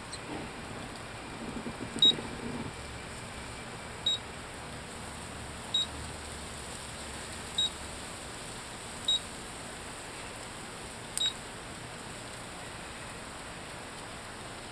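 Raymarine chartplotter/fishfinder keypad beeping as its buttons are pressed: six short, high beeps, one every couple of seconds, the first the loudest. A steady low hiss lies underneath.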